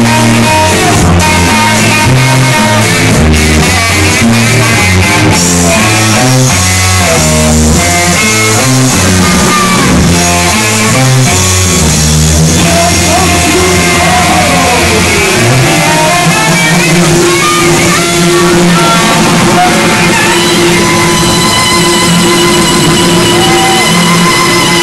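Live band playing loudly: bass and electric guitar stepping through a riff, until about fifteen seconds in the low stepping line drops away and long held notes carry on.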